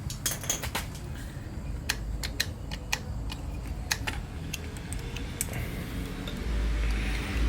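Scattered light clicks and taps of hands and tools working on the motorcycle's carburetors and their linkage. A low rumble rises about six and a half seconds in.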